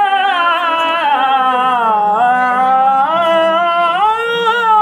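A man singing a noha, a Shia mourning lament, unaccompanied, drawing out one long melismatic phrase. The pitch dips about two seconds in and climbs again before the next line.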